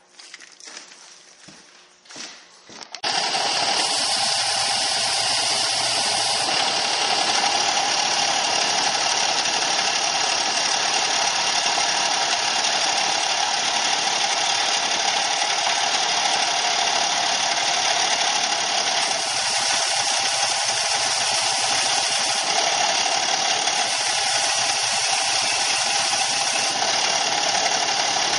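Combination belt and disc sander switched on about three seconds in, then running steadily while small wooden game pieces are sanded on it.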